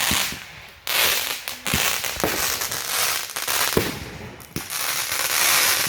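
Consumer fireworks going off in a backyard show: a run of sharp bangs, roughly one every half second to second, over a dense crackling hiss.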